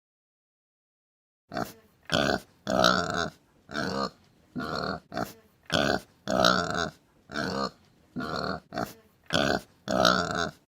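Domestic pig grunting: about a dozen short grunts in quick succession, starting about a second and a half in.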